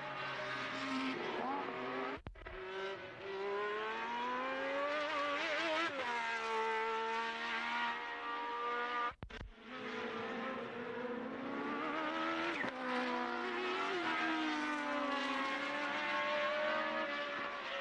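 Formula One car engines revving, their pitch rising and falling repeatedly. The sound cuts out briefly twice.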